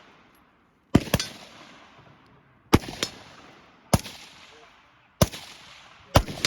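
Rifle shots: a quick pair about a second in, then four single shots spaced roughly a second apart, six in all, each followed by a trailing echo.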